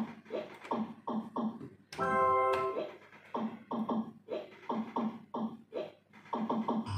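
Cirsa Piratas del Caribe slot machine playing its electronic game sounds as the reels spin: a repeating run of short falling blips in quick groups, with one longer held note about two seconds in.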